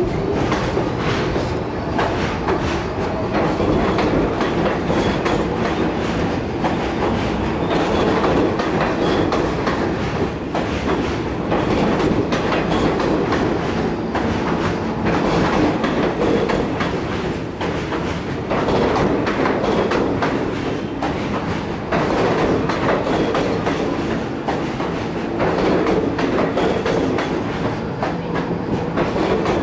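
New York City Subway R46 train pulling out along the platform, a steady loud rumble of wheels on rail with a continual clatter of clicks over the rail joints.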